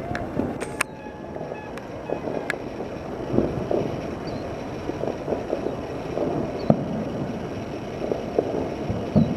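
Distant fireworks display: a continuous low rumble of overlapping booms and pops, with a sharper bang standing out now and then.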